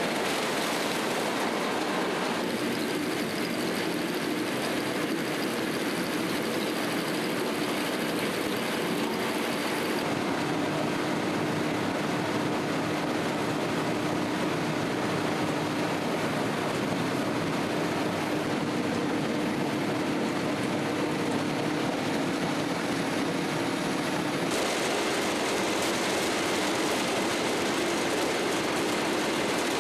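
Wuzheng wheat combine harvester running: a steady, loud mechanical noise with a constant hum under it. The sound shifts abruptly three times, as if cut between takes.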